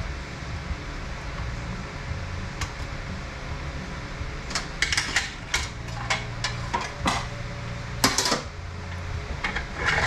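Steel transmission parts and hand tools clinking and scraping, over a steady low hum. The metal clicks come in a quick run from about halfway through, with a louder clank a few seconds later and another near the end.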